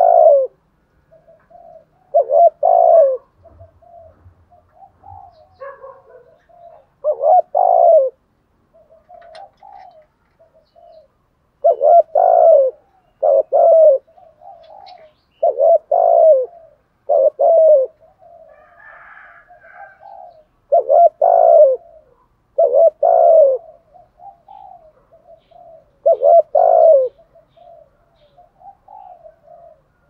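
Spotted dove cooing: phrases of soft, short notes, each ending in one or two loud, low coos, repeating every few seconds.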